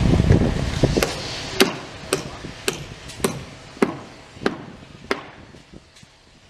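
Hammer blows on the tram-track works: about eight sharp strikes, a little under two a second, stopping about five seconds in. A low rumble of machinery sits under the first second or so.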